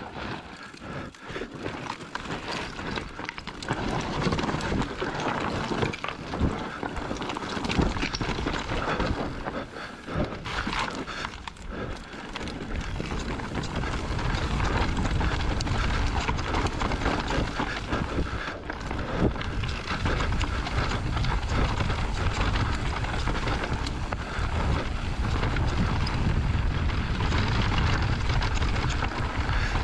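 Electric mountain bike descending a rough dirt trail: tyres rolling over dirt and stones, with the bike rattling and knocking over bumps. About halfway through the ride gets faster and smoother, and wind buffeting the microphone becomes a steady low rumble.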